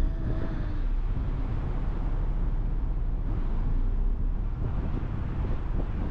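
Steady low rumble of a passenger ferry under way, its engine noise mixed with wind on the microphone.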